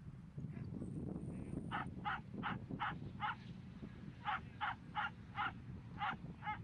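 Short harsh animal calls repeated about three times a second, in a run of five and then a run of six, over a steady low wind rumble.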